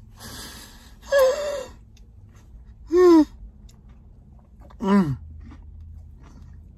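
A man's wordless sounds of pleasure while savoring a spoonful of ice cream: a breath, then three short moans about two seconds apart, the last one sliding down in pitch.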